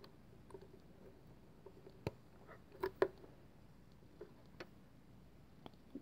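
Plastic Lego bricks clicking and tapping as they are handled: a few scattered clicks, the sharpest about two and three seconds in.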